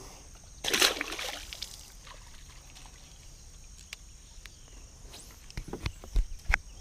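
A splash of water about a second in, then a few low thumps near the end.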